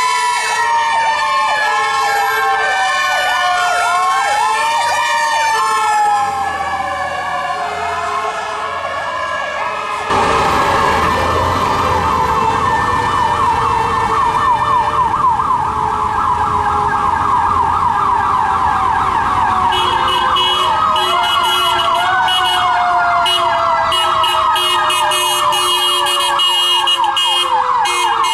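Several emergency-vehicle sirens sounding at once: fast electronic yelp sirens repeating a few times a second over the long, slowly falling whine of a mechanical Q siren winding down, which rises again briefly. The sound changes abruptly about ten seconds in, and the denser yelping and a second winding whine carry on to the end.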